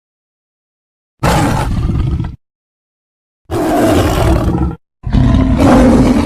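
Three sound-effect roars of a smilodon (sabre-toothed cat), each lasting about a second or more, with dead silence between them. The first starts just over a second in, and the third starts about five seconds in and is still going at the end.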